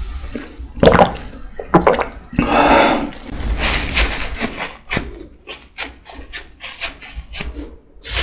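Close-miked swallowing from a drink can, a few separate gulps, followed from about three and a half seconds in by a paper napkin rustling and crinkling in quick short crackles as the mouth is wiped.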